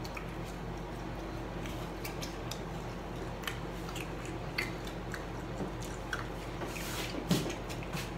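Two people chewing and biting chicken nuggets, with scattered soft mouth clicks and smacks over a steady low hum. There is a brief, slightly louder mouth sound about seven seconds in.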